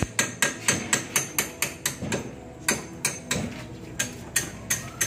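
Hammer striking metal on a septic vacuum truck's pump fittings: a run of sharp metallic blows, each with a short ring. They come about four a second at first, pause briefly midway, then come fewer and more irregular.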